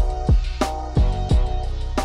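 Background music with a steady beat of deep, pitch-dropping kick drums and a snare hit over sustained notes.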